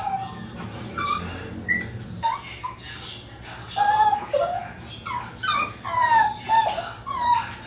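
Maltese dogs whining and yipping at a closed door: a run of short, high whimpers, many sliding down in pitch. This is the distress of dogs left behind while their owner has gone out with another dog.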